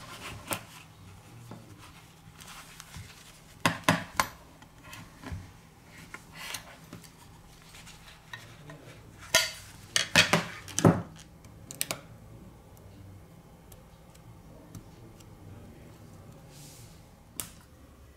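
Hand tools clicking and tapping against the parts of a OnePlus 3T smartphone during disassembly. The clicks come in scattered clusters, the loudest a quick run of sharp clicks about ten seconds in.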